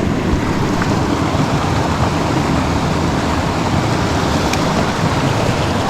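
Steady rushing of fast creek water close to the microphone.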